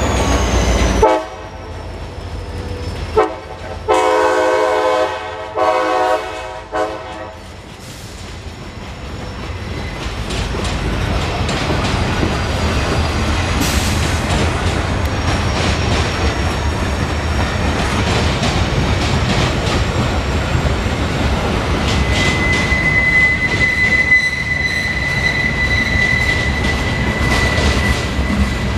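CSX freight train's boxcars rolling past, wheels clacking over the rail joints, the rolling noise building after about ten seconds. Several horn blasts from the locomotive sound in the first seven seconds, and in the last quarter a steady high wheel squeal runs over the rolling.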